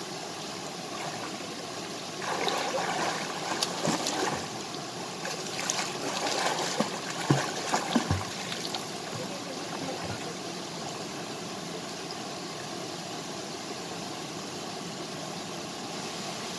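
Steady rush of a small waterfall and stream, with a swimmer splashing and kicking hard for several seconds in the first half, a run of sharp slaps on the water the loudest part.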